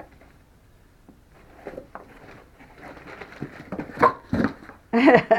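Rustling and knocking of a cardboard package being opened, in short scattered bursts that get louder toward the end; a voice starts near the end.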